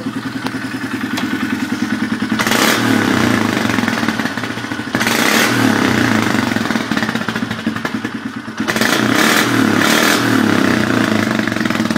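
Polaris Sportsman 500 ATV's single-cylinder four-stroke engine, with a custom exhaust, running with a rapid low chug. The throttle is opened several times, making louder surges about two and a half, five and nine seconds in.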